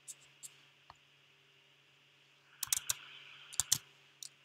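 Computer keyboard and mouse clicks: a few single clicks, then a quick cluster of key taps between about two and a half and four seconds in, over a faint steady low hum.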